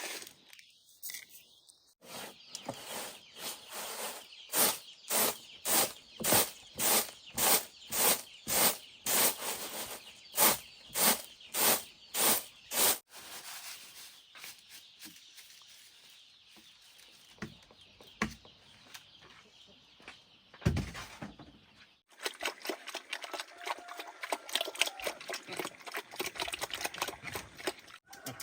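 Repeated chopping strokes into wood, about two a second for roughly ten seconds, as a tree is cut open for its core. Then softer rustling and scraping with one dull thud, and denser crackling near the end.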